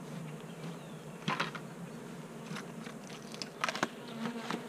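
Honeybees buzzing as a steady hum around an open hive, with a few sharp clicks and knocks of handling, a pair about a second in and another cluster near the end.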